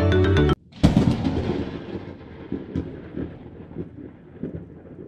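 Background music cuts off abruptly. A moment later a loud thunder-like boom rolls off into a low rumble that fades away over several seconds: a logo sound effect.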